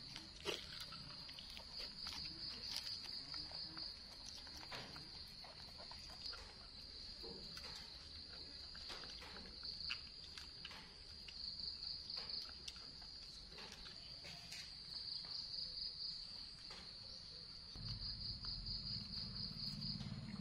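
Steady high-pitched insect trilling that swells into pulsing stretches now and then, with scattered short clicks and crunches from macaques biting and gnawing grilled corn on the cob.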